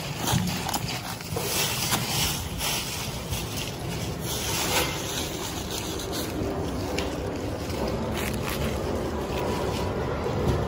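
A steady rumbling noise, with a few short crackles and rustles of plastic-wrapped fish trays and crushed ice being handled.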